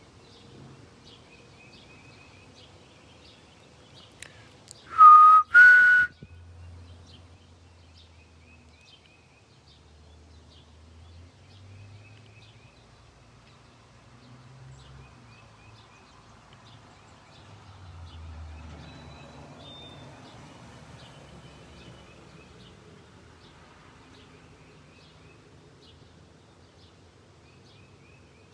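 Unseen bird in a tree repeating a short, high chip note at a steady, regular pace. About five seconds in, two loud whistled notes cut in, the second a little higher than the first.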